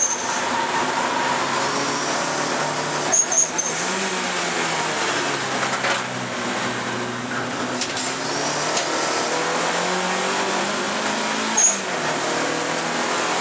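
Alfa Romeo 155 Turbo race car's engine heard from inside the cabin, revving up and dropping back through gear changes under hard acceleration. A few short high-pitched chirps stand out at the start, about three seconds in and near the end.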